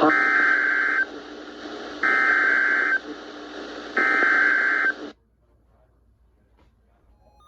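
NOAA Weather Radio SAME header for an Emergency Alert System alert: three buzzing digital data bursts, each about a second long and two seconds apart, cutting off to near silence about five seconds in. The header marks the start of a severe thunderstorm watch alert.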